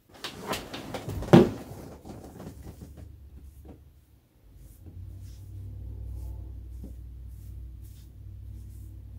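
Close rustling and handling noise as the knitted wool toy and its loose yarn tail strands are moved, with a knock about a second and a half in. A low steady rumble starts about five seconds in.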